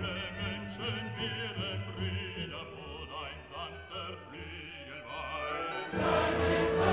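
Classical background music: a solo operatic voice singing with vibrato over orchestra, turning suddenly louder and fuller about six seconds in.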